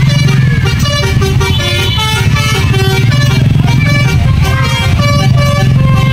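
Telolet Basuri multi-tone bus horn playing a tune of short stepped notes, over the steady low hum of a bus engine running.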